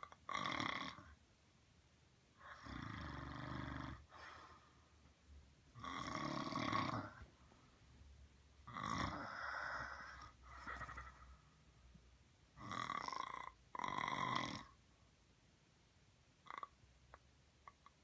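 Snoring: a run of long, loud snores every two to three seconds, some coming in pairs. They stop about fifteen seconds in, leaving a few faint clicks.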